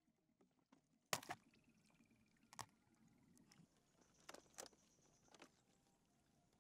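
Near silence broken by a few sharp clicks: a double one about a second in, which is the loudest, then single ones at about two and a half seconds and a pair at about four and a half seconds. A faint thin high tone sounds in between.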